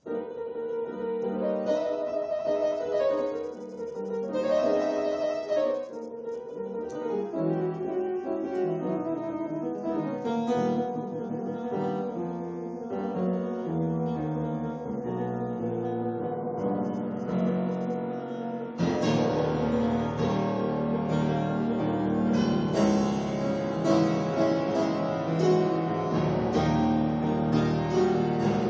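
Steinway grand piano played with its lid down: a Spanish-flavoured improvisation, growing louder and fuller about two-thirds of the way through.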